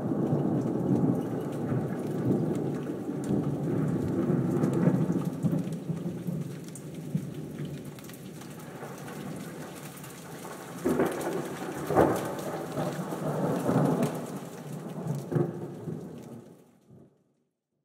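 Steady rain with rumbling thunder, and louder thunder claps about eleven and twelve seconds in. It fades out to silence shortly before the end.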